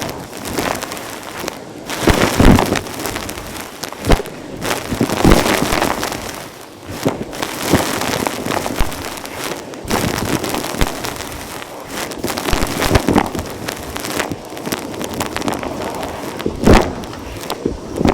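Vacuum cleaner sucking up gritty natural dirt, with constant crunching and crackling as debris rattles up the tool and hose, and irregular louder cracks.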